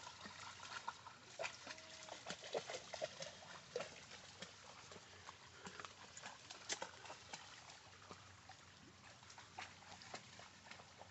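A dog wading through a shallow stream: irregular light splashes and clicks of its legs moving in the water, over a faint trickle.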